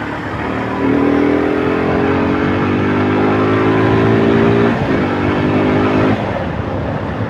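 Rusi Gamma 200 motorcycle engine accelerating, its pitch rising slowly. There is a short break about five seconds in, then it pulls again and eases off just after six seconds, over steady wind and road noise.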